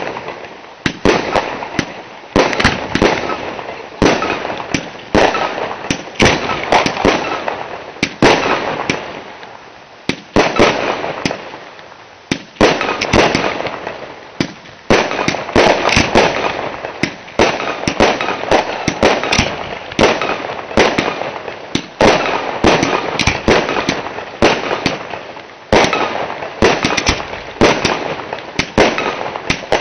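Aerial fireworks bursting in quick succession: sharp bangs about once or twice a second without a break, with dense crackling between them.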